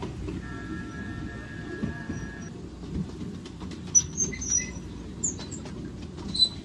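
Miniature ride-on railway train running with a steady low rumble of its wheels on the track. A steady squeal is held for the first couple of seconds as it rounds a curve, and several short, sharp high squeaks come from about four seconds in.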